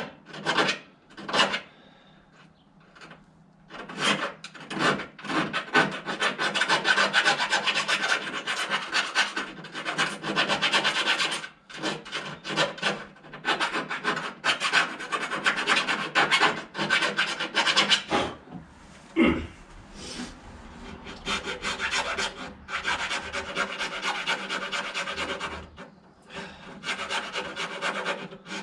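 Hand file rasping in quick repeated strokes, cleaning filler and paint out of the wiper motor mounting holes in a car body. The strokes stop briefly a few times, with a single low knock about two-thirds of the way through.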